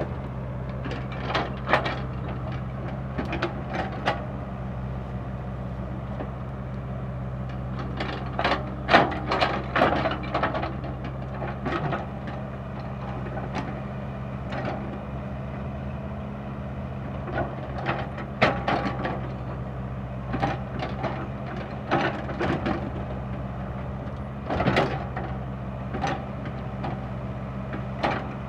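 Komatsu PC60-5 excavator's diesel engine running steadily under work, with irregular knocks and clatters from the bucket digging hard soil and loading it into a truck.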